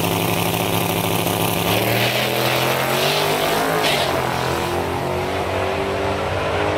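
Twin-turbo LS V8 in a Fox-body Mustang at full throttle on a drag-strip pass, heard from beside the track as the car launches and pulls away, its engine note shifting in pitch and fading slightly as it recedes.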